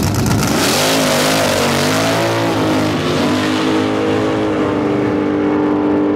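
Two drag cars launching hard off the line and accelerating away at full throttle. The engine note climbs and drops several times in the first few seconds as they shift through the gears, then holds a steady high note as they run down the track.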